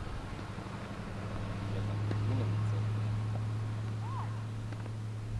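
A steady low hum, louder in the middle, with a faint short chirp about four seconds in.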